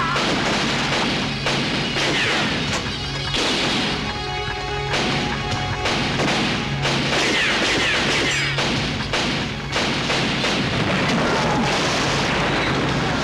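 Film-soundtrack gunfight: many gunshots and crashes in quick succession over a music score with a steady low drone.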